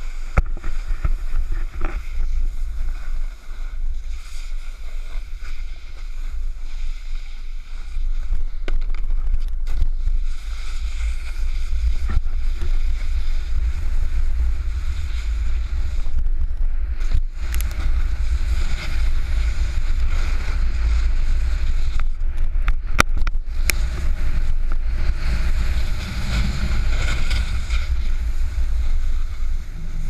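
Wind buffeting a pole-mounted action camera's microphone as a snowboard runs downhill, with the board's edges scraping and hissing over the snow. A few sharp clicks come a little past the middle.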